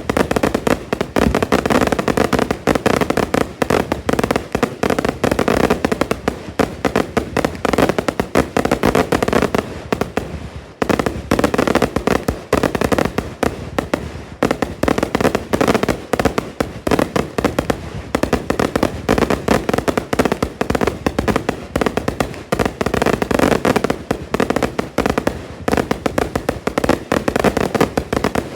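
Fireworks going off in a dense, continuous barrage of rapid overlapping bangs and crackles, with a brief lull about eleven seconds in.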